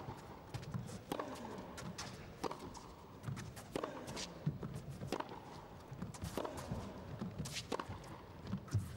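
Tennis rally on a carpet court: the ball is struck back and forth by the players' rackets about once every second and a bit, with bounces and the players' footsteps between the hits.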